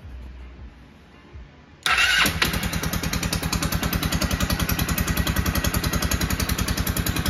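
Honda XR150's single-cylinder four-stroke engine, bored out to 222cc and fitted with a 27mm carburetor, starts about two seconds in and settles into a steady idle, firing about twelve times a second.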